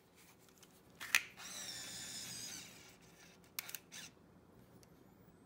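Olympus Mju Zoom Wide 80 compact film camera switching on: a sharp click, then the lens motor whirring for just over a second as the zoom lens extends, followed by a few quick clicks.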